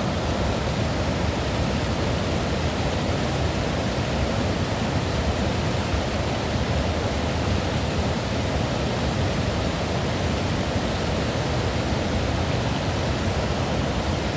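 Waterfall rushing steadily, a loud even wash of falling water; the creek is running high and will flow quieter once it calms down.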